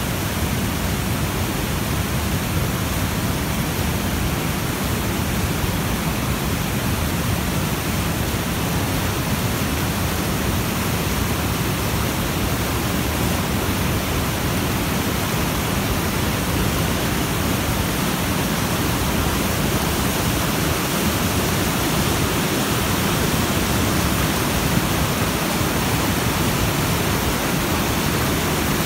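Stream in spate after heavy rain, rushing over rocks in foaming rapids: a steady, unbroken rush of water.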